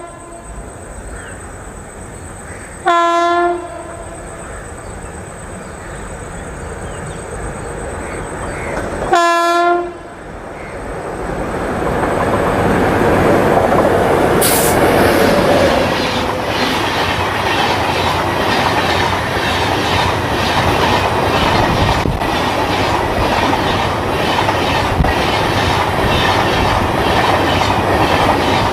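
Indian Railways locomotive horn sounding two short blasts about 3 and 9 seconds in as the train approaches. From about 11 seconds the train with LHB coaches passes close by, its wheels clattering over the rail joints in a loud, steady rush.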